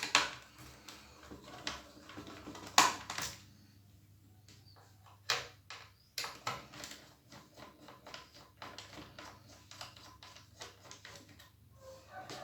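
Scattered light clicks and knocks of laptop parts being handled as the hard disk is taken out, with the strongest knocks a little under 3 seconds in and again about 5 seconds in.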